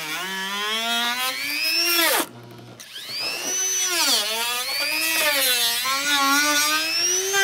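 Handheld rotary tool with a cutoff wheel cutting into a car's rear bumper panel: a high motor whine whose pitch sags and rises as the wheel bites. It cuts out about two seconds in and spins back up about half a second later.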